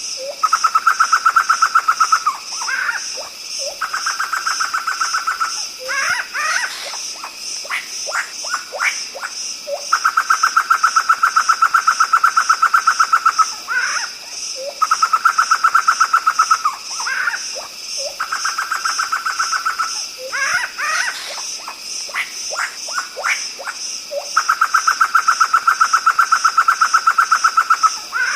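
Poksay hitam (black laughingthrush) calling: bursts of quick sweeping notes alternating with long, evenly pulsed trills lasting a few seconds each, over a constant high pulsing buzz.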